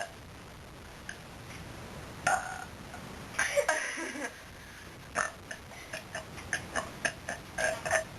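A person forcing burps: a short burst about two seconds in, then a longer throaty, breathy attempt, followed by a string of short puffs and clicks. The burps are weak and sound more like breathing than burping.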